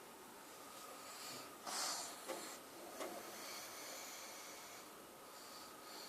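A small sleeping animal snoring faintly: a few short rasping breaths, the loudest about two seconds in, then a longer drawn-out breath.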